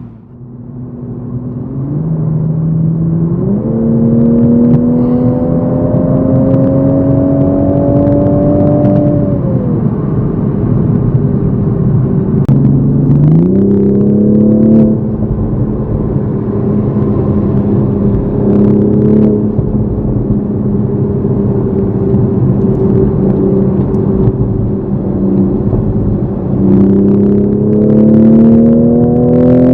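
Toyota GR Supra MK5 engine heard from inside the cabin in Sport mode as the car accelerates. The engine pitch rises in a long sweep, drops back, climbs again and holds steady, then starts rising again near the end, with a few faint ticks along the way.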